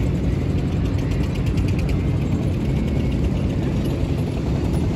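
A motorboat's engine running steadily: a loud, dense low rumble, with a fast mechanical ticking over it in the first couple of seconds.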